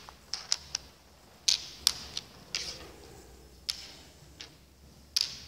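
Draughts pieces clicking onto a wooden draughts board as they are picked up, moved and set down by hand: a run of sharp, irregularly spaced clicks, some in quick pairs.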